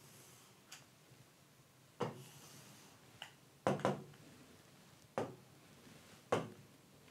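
Stylus tapping on a touchscreen display: about seven light, irregularly spaced taps, with a quick double tap near four seconds in.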